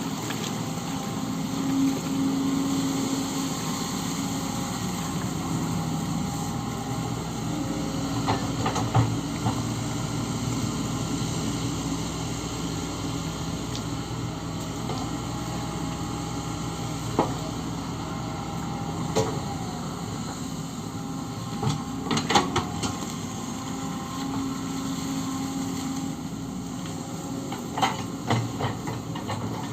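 Kobelco SK130 hydraulic excavator's diesel engine running steadily under digging work, its note shifting slightly with load, with a few sharp metallic clanks scattered through, several in quick succession about two-thirds of the way in.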